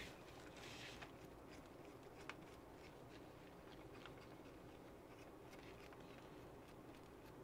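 Near silence, with faint small clicks and light rustling of hands handling the plastic RC truck chassis and its small parts.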